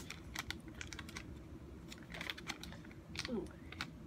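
Plastic blind-bag packaging being opened by hand: a string of crinkles, rustles and small sharp crackles, irregular and fairly quiet.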